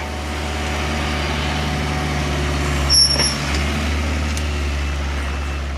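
An engine running steadily with a low hum, and a brief high squeal about three seconds in.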